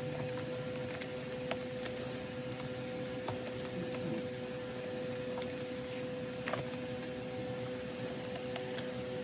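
Light clicks and rustles of photocards being slid into the clear plastic sleeves of a ring binder, over a steady hum.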